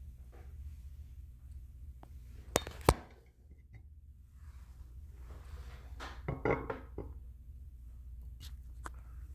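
Porcelain toilet tank lid being handled and set down: two sharp knocks about two and a half seconds in, then a short clatter of knocks with a brief ceramic ring a few seconds later, over a steady low hum.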